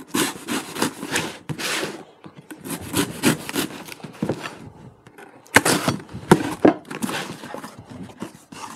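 A knife slitting the packing tape on a cardboard box in a series of rasping strokes. Then the cardboard flaps are pulled open, with a few sharp cracks a little past halfway, followed by softer cardboard rustling.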